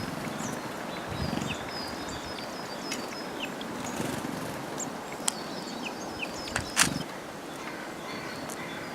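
Tits calling at a winter feeder: many short, high calls and chips, some falling in pitch, over a steady background hiss. A few sharp taps cut through, the loudest about seven seconds in.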